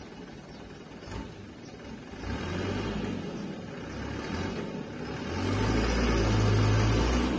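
Diesel engine of a loaded dump truck revving as it pulls away, building up and getting louder from about two seconds in, loudest near the end with a high whine over it.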